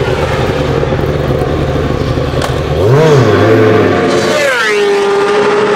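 Superbike engine running at low steady revs, then, about three seconds in, revving up and down and sliding down to a high steady note.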